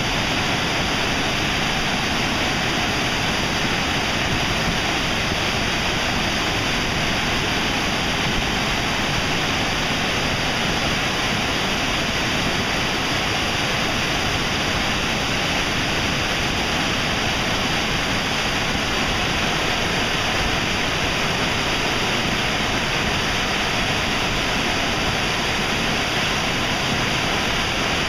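Waterfall in high, muddy flow: Wai'ale Falls on the Wailuku River, a steady, unbroken rush of water pouring over a lava ledge.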